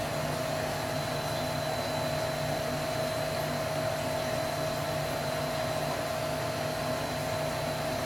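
Steady machine hum, as of a fan or blower running, with a constant whining tone above it and no change in level.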